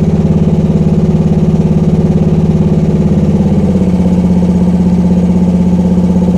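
Gasoline engine of a Rippa R10 mini excavator running steadily with its hydraulic pump engaged. Its note changes slightly a little under four seconds in.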